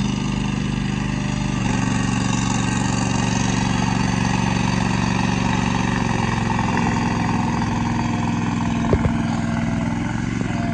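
Engine of a Weedoo aquatic tractor, an amphibious weed-harvesting boat, running steadily. Its note changes about one and a half seconds in and again near seven seconds, and there are a couple of sharp knocks about nine seconds in.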